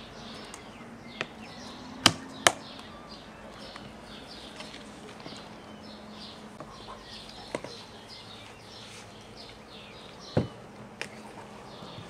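Plastic lids being pressed onto large glass pickling jars and the jars handled on a table: a few sharp clicks and knocks, the loudest two close together about two seconds in and two more near the end, over faint high chirping.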